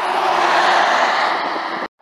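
Day-cab semi truck passing close on the highway: loud, steady engine and tyre noise that cuts off suddenly near the end.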